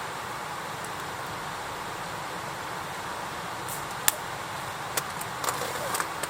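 Campfire burning: a steady rushing hiss with a few sharp crackles, the loudest about four seconds in, then another at five seconds and a quick cluster near the end.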